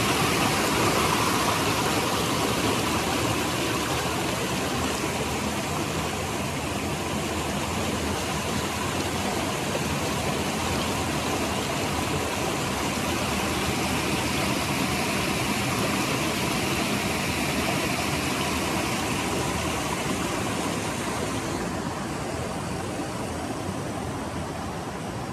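Mountain creek rushing over rock ledges in a small cascade: a steady rush of water that slowly softens, its hiss thinning about three-quarters of the way through as the flow becomes a gentler stream.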